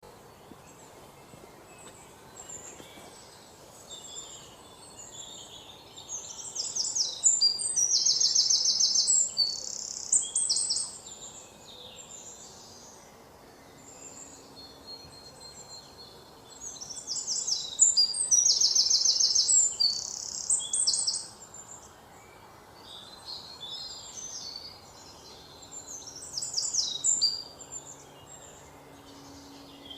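A songbird singing long, loud, rapid trilling songs: one bout about six seconds in, another a little past the middle, and a shorter one near the end, with softer scattered chirps in between.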